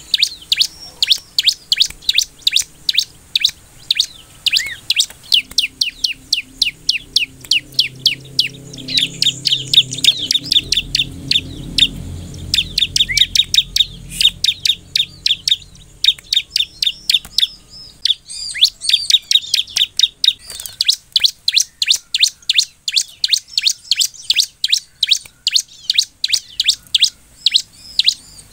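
Bar-winged prinia (ciblek) singing: a long, rapid run of sharp chirps sweeping downward in pitch, about four a second.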